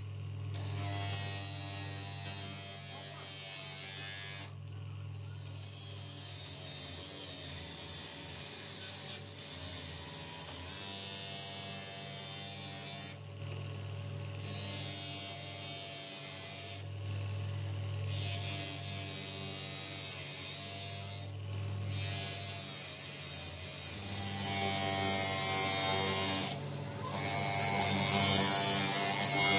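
Electric motor with an abrasive grinding wheel running with a steady hum while a steel sword blank is pressed against the wheel, giving a harsh grinding hiss in repeated passes. The grinding stops for a moment several times as the blade is lifted off, and is loudest near the end.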